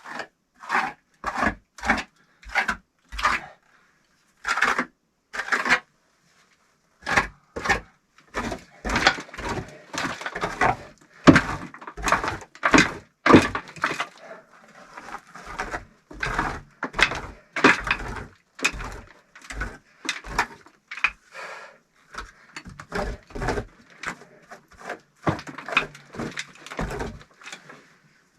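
Bricklaying on a brick stove chimney: a run of short scraping and knocking sounds, about one or two a second, closer together after the first few seconds.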